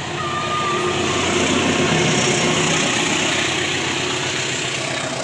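Diesel-locomotive-hauled train passing close by, a heavy rumble that swells to its loudest about two seconds in and then slowly eases. A short high tone sounds just after the start.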